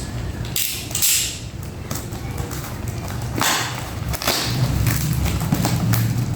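Packaging being handled and cut open: a few short rustling scrapes and thuds, over a steady low hum.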